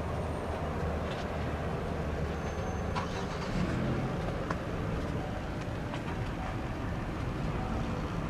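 Steady low rumble of a vehicle, with three faint clicks near the middle.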